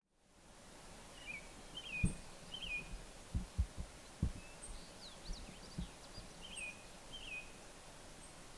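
Small birds chirping in short, falling calls, often in pairs, over a steady outdoor hiss that fades in at the start. A few short low thumps land between about two and six seconds in.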